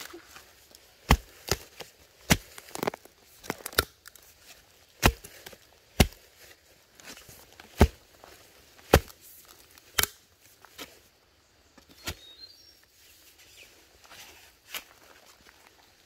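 Metal blade of a long-handled digging tool chopping into packed soil around a bamboo shoot: a dozen or so sharp strikes at an uneven pace, about one a second, spacing out in the second half.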